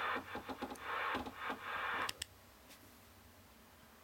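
Static hiss from a Cobra 148GTL CB radio's speaker, broken up by short clicks as the channel selector is turned. The hiss cuts off with a click about two seconds in.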